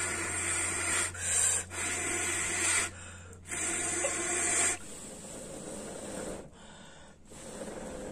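Someone blowing hard into the firewood of a clay chulha to make it catch: several long, noisy blows with short breaks for about five seconds, then quieter.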